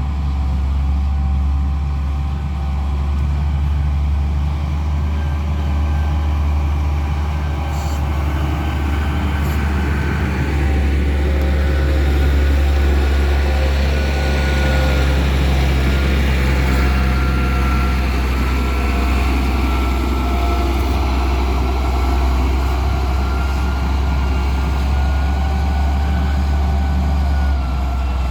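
Heavy diesel vehicle engine running steadily, a strong low drone with a thin high whine over it, getting a little louder after about ten seconds.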